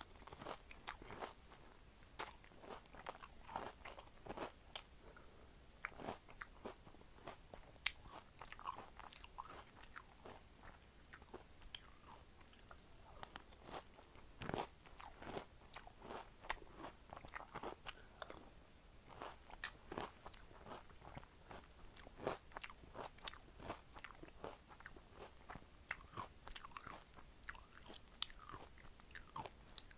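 Close-up eating sounds: a mouth crunching and chewing spoonfuls of Cinnamon Toast Crunch cereal in milk, with many irregular sharp crunches.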